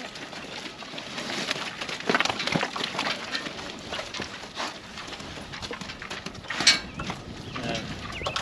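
Pigs in a wet, muddy pen grunting and rooting about, with irregular squelching and clicking, and one sharper, louder call a little before the end.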